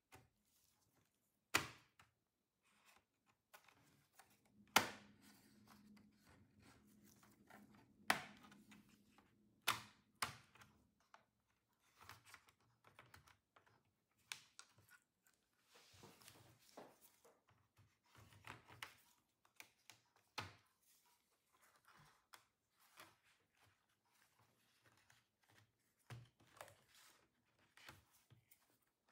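Bottom-cover clips of an Acer Predator Helios 16 AI laptop snapping loose as a thin plastic pry tool is worked along the edge of the cover. Four sharp snaps come in the first ten seconds, followed by lighter clicks and scraping of the tool against the case.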